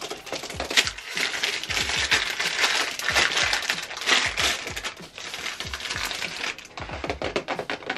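Plastic wrapper of a boxed wand package crinkling and crackling as it is handled and pulled open.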